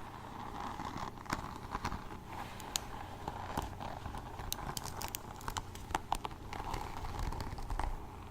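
Small objects handled close to the microphone: an irregular run of sharp clicks and light taps with some crinkling, over a steady hiss.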